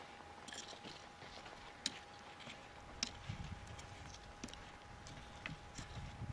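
Quiet open-air background with a faint steady tone and a few small, irregularly spaced sharp clicks.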